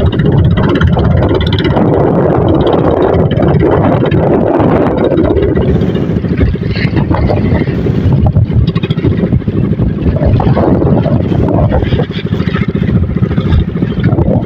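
Motorized outrigger boat's engine running steadily under way, with wind and water rushing past.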